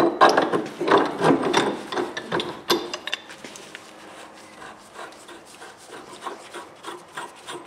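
Corroded threads of a solid brass ball valve grating and scraping as the valve is spun off the pipe by hand in short repeated turns, the threads tight with corrosion. The scraping is strongest in the first few seconds and grows fainter toward the end.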